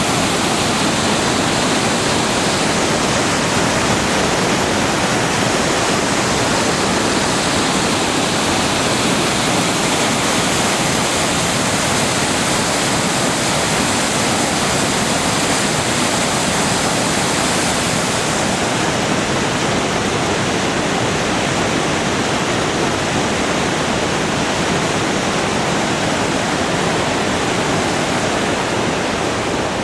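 Waterfall on a river in full flow, a loud, steady rush of pouring water; the highest hiss drops back a little about two-thirds of the way through.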